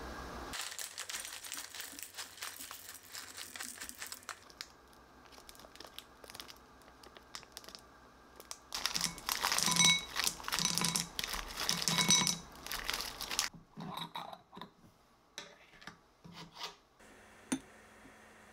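Plastic packaging crinkling, loudest in the middle, as a zip bag of frozen blueberries is shaken out over a bowl. Near the end come a few light clicks of a metal spoon in a glass jam jar.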